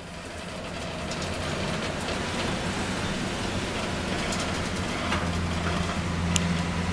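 Storm wind and heavy sea heard aboard a ship, a steady rushing noise over a steady low hum, fading in over the first second.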